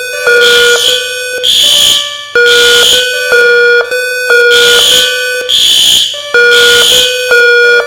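Two building alarms sounding at once: loud fire alarm horn pulses repeating about once a second, over a second electronic alarm tone that switches back and forth between a low and a higher pitch.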